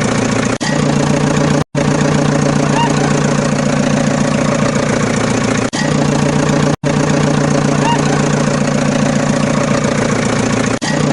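Engine-idling sound effect played on a loop: a steady, loud engine drone that repeats about every five seconds, with brief dropouts where the loop restarts.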